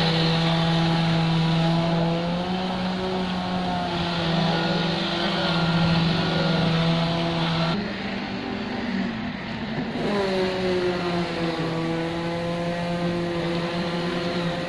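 An engine drones steadily at a constant pitch. About eight seconds in it drops away, and it returns some two seconds later with its pitch settling downward.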